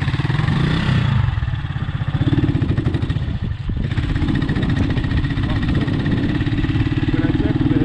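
Small motorcycle engine running close by: a steady, rapid low putter with its note holding level.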